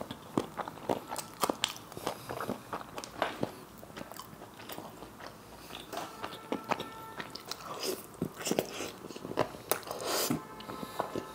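Close-miked chewing and crunching of a crumb-fried egg devil: an irregular run of short wet mouth clicks and crunches, several a second.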